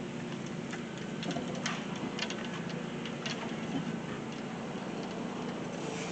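A boat motor running with a steady low hum, with irregular light clicks and ticks over it, most of them between about one and three and a half seconds in.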